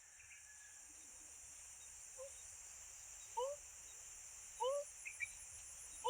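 An unidentified animal giving short rising whoop-like calls, one roughly every second and a bit, growing louder through the stretch, over a steady high-pitched insect drone.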